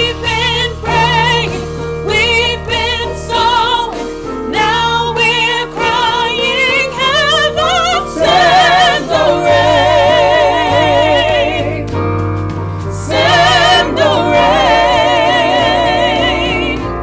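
Gospel song sung by a lead voice backed by keyboard, bass guitar and drums. The voice sings runs of short notes, then holds long notes with wide vibrato, twice, from about the middle and again near the end.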